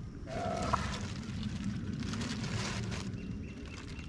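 Water splashing and sloshing as a hooked eel thrashes at the surface, loudest in the first three seconds, over a steady low rumble.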